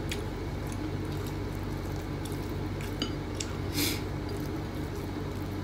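Quiet eating sounds: soft squishing and chewing of food eaten by hand, with faint clicks of fingers or a spoon on plates, over a steady low hum. A short hiss-like noise comes about four seconds in.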